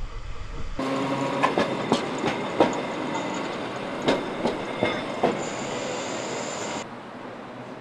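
Sapporo streetcar running along street-level track, its wheels knocking out a string of sharp clacks over rail joints and crossings. A thin high wheel squeal joins about five and a half seconds in, and then the sound drops suddenly to a faint hiss.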